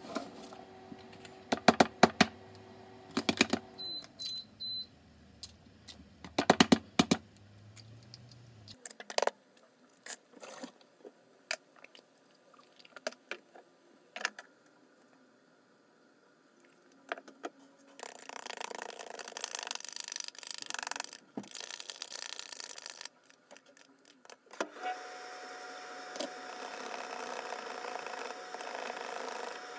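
Eggs cracked on the rim of a bowl, a few sharp knocks in the first seven seconds. Then, in the second half, a handheld immersion blender whirs in the bowl as it beats the eggs, in two runs with a short break between.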